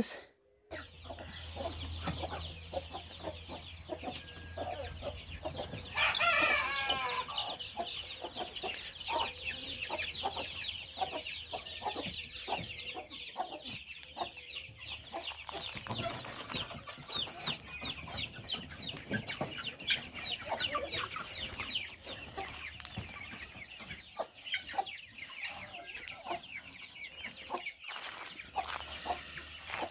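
Chickens and young chicks calling continuously, a dense run of short high peeps and clucks. About six seconds in, one louder, drawn-out call stands out.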